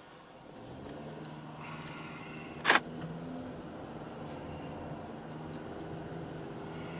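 A car's engine and road noise, heard from inside the cabin, building as the car pulls away and then running steadily. A single sharp click comes about three seconds in and is the loudest sound.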